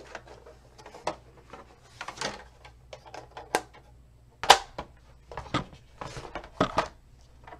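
Hard plastic score-and-cut board being opened up and set down flat: a series of separate clicks, knocks and clatters of plastic, the loudest about halfway through.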